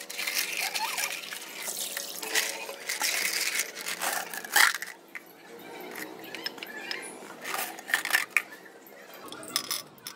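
Tap water running and splashing into a plastic cup in a washbasin for about the first five seconds, then stopping. After that, light clinks and knocks of a glass tumbler and small stones being handled over the sink.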